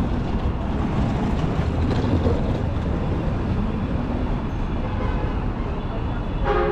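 City street ambience: a steady hum and rumble of traffic. Near the end a loud horn starts, sounding several pitches together as a held chord.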